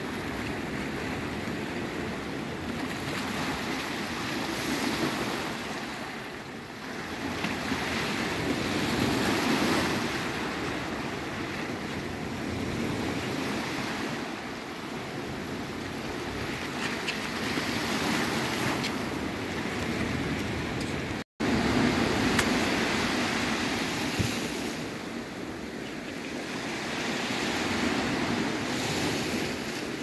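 Small Mediterranean waves surging and washing ashore over rocks and sand. The surf swells and ebbs every few seconds, with a momentary break in the sound about two-thirds of the way through.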